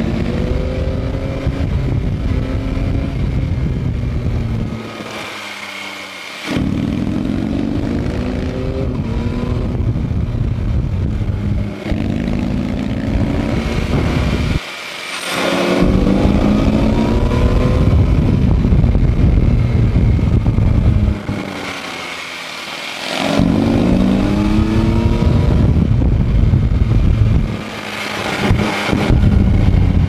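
Yamaha MT-09 SP's inline three-cylinder engine, heard from on the bike, pulling hard out of bends with its pitch rising through the revs. Several times the throttle closes and the engine drops off load going into a bend, then picks up again.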